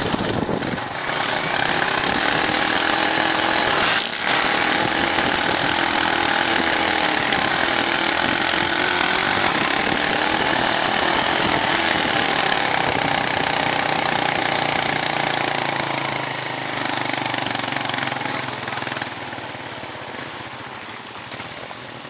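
Small motorcycle engine running under way, with wind rushing over the microphone. The engine note wavers a little, and the sound gets quieter over the last few seconds.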